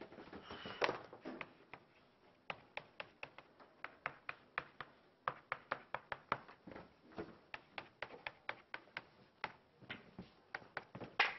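Chalk writing on a blackboard: a run of short, sharp taps and clicks as the chalk strikes the board, about two or three a second.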